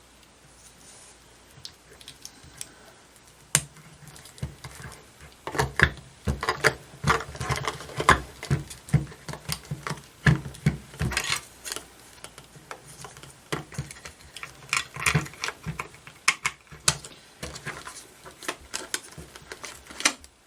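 Hands handling a digital multimeter: irregular plastic clicks, knocks and rattles, sparse at first and much busier from about six seconds in.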